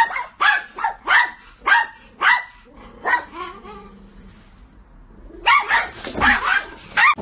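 A dog barking repeatedly, about two barks a second, then a pause of about two seconds and another quick run of barks near the end.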